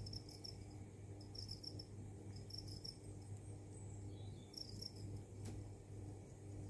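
Faint insect chirping in short high groups about every one to two seconds, over a low steady hum, with one light click about five and a half seconds in.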